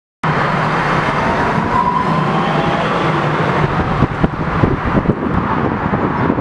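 DART light rail train pulling into a station: a steady rumble with a faint motor whine rising slightly about two seconds in, then rapid clatter from the wheels over the rails from about four seconds on. The sound cuts in abruptly after a brief silence at the start.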